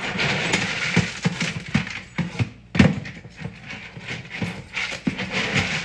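Dry dog kibble rattling and clicking in feeding bowls: a run of quick, irregular small clicks with one heavier knock near the middle.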